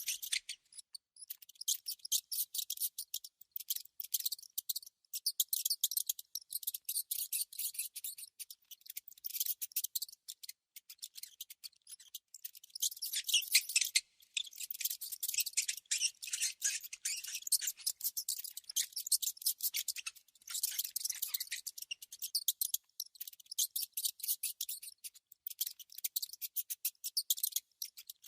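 Mouse sounds: rapid runs of tiny, high-pitched clicks and scratchy chitters in clusters with brief pauses between them.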